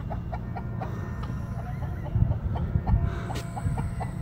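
Chickens clucking: a steady run of short clucks, about three to four a second, over a low rumble.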